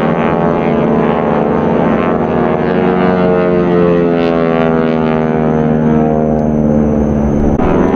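Single piston-engine propeller plane flying overhead in an aerobatic pass: a steady engine drone whose pitch slowly falls as it goes by, shifting abruptly near the end.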